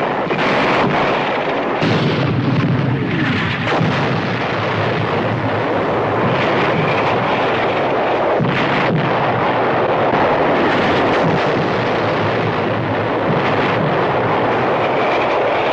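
Sustained artillery barrage: a loud, continuous din of explosions with scattered sharp shots.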